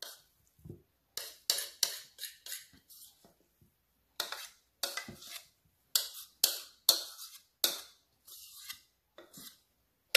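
Dry stuffing mix being shaken and scraped out of a mixing bowl onto a casserole: clusters of short, sharp taps and clicks with short pauses between them.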